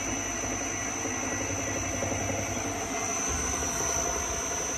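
2-litre lab-scale double sigma-blade kneader mixer running, its Siemens motor and hard-tooth gear reducer driving the blades forward with a steady hum and a thin high whine. The low hum changes slightly about three seconds in.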